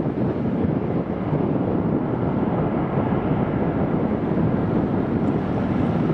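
LET L-410 Turbolet's twin turboprop engines running at low power while the aircraft lines up on the runway: a steady, even rumble with no distinct whine.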